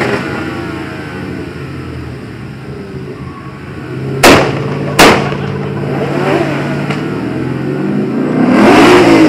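Car engines idling and being revved, with two loud sharp bangs about a second apart in the middle, and a rev rising near the end.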